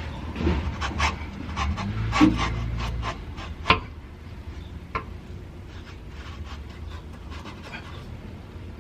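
Exhaust piping being worked into place under a car: a run of metal knocks, clicks and scraping, with two loud sharp clicks a few seconds in, then quieter ticks.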